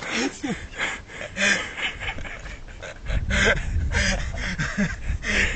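Hard, breathy laughter in rapid gasping bursts with short squeaky voiced glides between them; a low rumble comes in about three seconds in.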